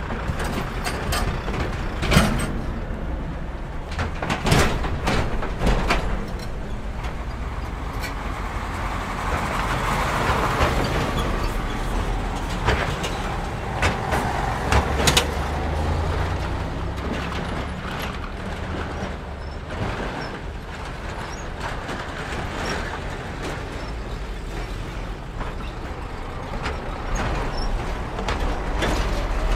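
Heavy trucks, articulated lorries and a vacuum tanker truck, driving one after another over a railway level crossing close by: engines running and tyres on the road, with sharp knocks and rattles every few seconds as wheels and trailers jolt over the crossing. The passing noise swells for a few seconds about a third of the way in.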